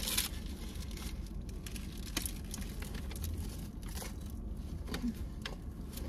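Paper burger wrapper crinkling in short, scattered rustles as it is peeled back and the burger is eaten, over a low steady hum.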